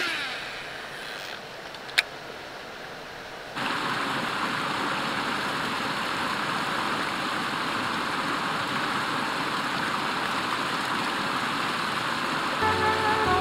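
Steady rush of flowing water over rocks in a stream channel, cutting in abruptly a few seconds in after a couple of sharp clicks.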